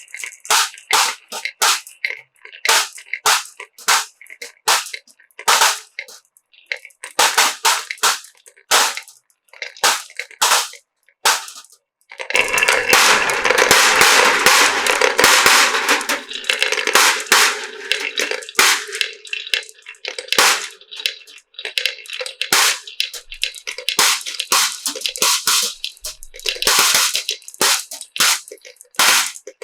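Marbles clicking and clattering along a wooden HABA marble run in quick, irregular knocks, swelling for several seconds near the middle into a dense, continuous rush of many marbles rolling and colliding at once.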